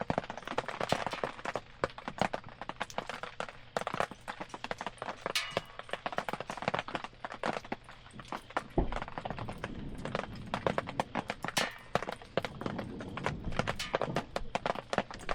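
Wood campfire crackling, with dense irregular pops and snaps over a steady hiss. A low rumble joins in for several seconds in the second half.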